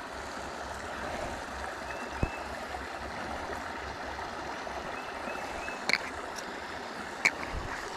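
Small rocky stream running steadily over a riffle, a continuous rush of water. A few sharp clicks come through it, about two, six and seven seconds in.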